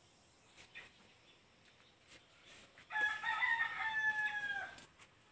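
A rooster crowing once, a single call of nearly two seconds that dips in pitch at the end, preceded by a few faint clicks.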